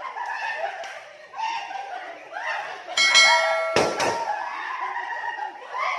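Balloons being squeezed between bodies: a short rubbery squeal about three seconds in, then two sharp balloon pops in quick succession, amid laughter and shouting.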